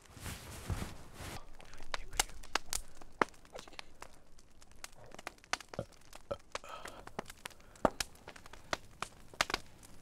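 Footsteps moving off over rough ground in the first second and a half, then a campfire crackling with irregular sharp pops.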